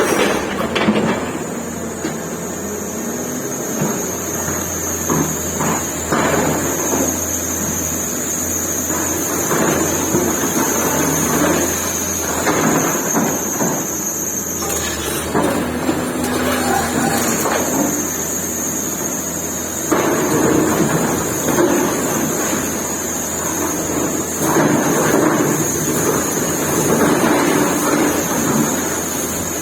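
Excavator demolishing a building: its diesel engine runs steadily under repeated crashing and rumbling of concrete and rubble breaking and falling as the bucket tears into the structure. A steady high whine runs throughout.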